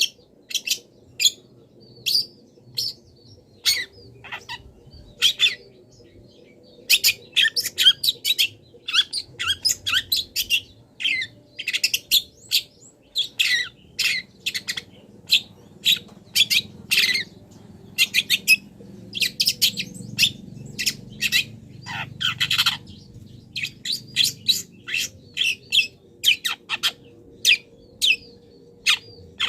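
Long-tailed shrike (cendet) singing steadily: a rapid, irregular run of short, sharp chirps and squawks in quick clusters. It is a song full of notes mimicked from wild birds.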